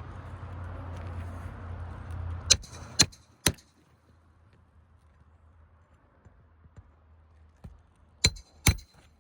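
Hammer striking a steel snake tool to drive roofing nails under an asphalt shingle: three sharp metallic clangs about half a second apart, then two more near the end. A low steady rumble underlies the first couple of seconds and then stops.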